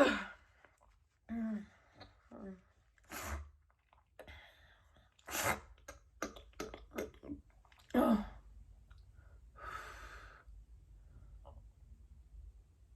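A woman's wet sneezing spell: short sniffs and breaths, then a voiced sneeze about eight seconds in, followed by a longer hissing breath through the nose.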